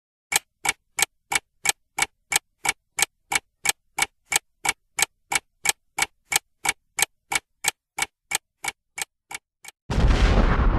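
Ticking sound effect keeping time with an on-screen countdown, about three even ticks a second, the last few a little softer. About a second before the end, a loud explosion sound effect with a deep rumble cuts in.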